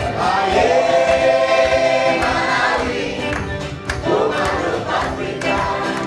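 A group of voices singing in chorus, with long held notes, over a sharp percussive beat.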